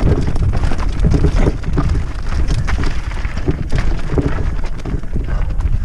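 Mountain bike rattling down a rocky, loose-stone trail: tyres crunching over gravel and rocks with a quick run of knocks and clatters from the bike, under steady wind rumble on the microphone.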